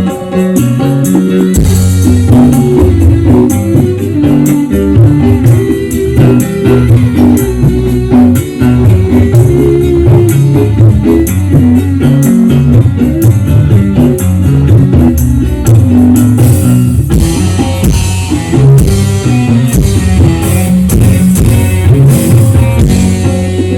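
Loud music with a band sound: bass line, guitar and drum kit, brightening with more cymbal and treble about two thirds of the way in.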